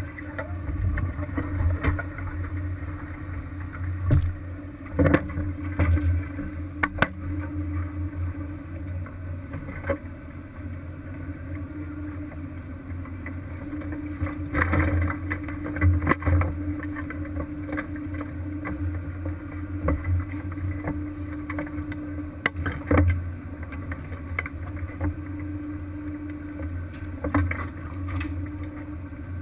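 Fishing boat's engine running steadily with a low drone and a constant hum above it, while sharp knocks and clanks come now and then.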